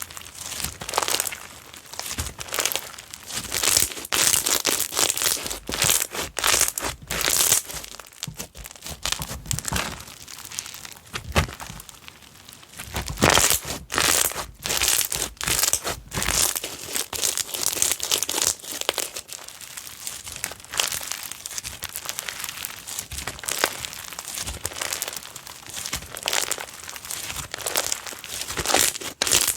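Slime being squeezed, pressed and stretched by hand, making a dense, irregular crackling and popping, with louder patches now and then.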